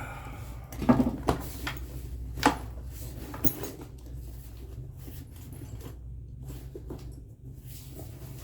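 Scattered clicks and knocks of hands handling tools and metal furnace parts, the loudest about one and two and a half seconds in, over a steady low hum.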